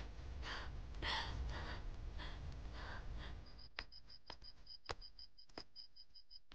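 Young women sobbing and gasping in short, shaky breaths for about three seconds. Then crickets chirp in a rapid, even rhythm, with a few sharp clicks of footsteps on a stone path.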